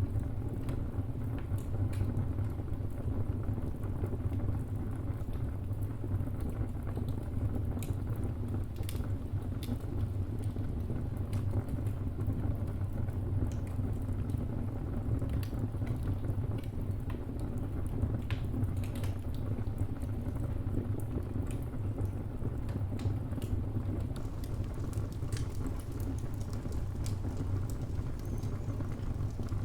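Wood fire burning in a fireplace: a steady low rumble with irregular sharp crackles and pops from the burning timber.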